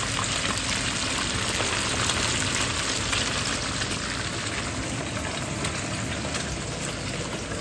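Rainbow snapper frying in hot oil in a pan: a steady sizzle with small crackling pops.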